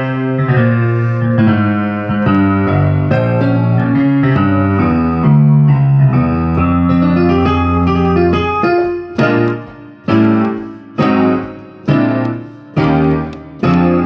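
Piano played with both hands: flowing, sustained chords over a bass line, then from about nine seconds in, separate chords struck roughly once a second, each left to fade away.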